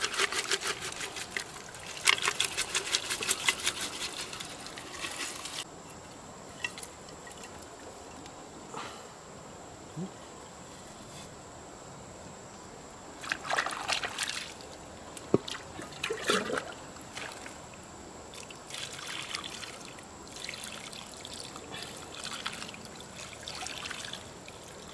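Water trickling and pouring from a clay pot onto mud and pearls. In the first five seconds there is a rapid clicking rattle as mud and pearls tip out of the pot, and there are a few short splashes later.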